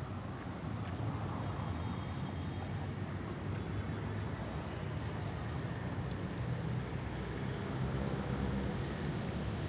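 City street traffic: car and other vehicle engines and tyres passing, a steady low rumble.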